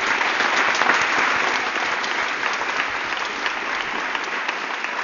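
An audience applauding, a dense clatter of many hands clapping that slowly eases.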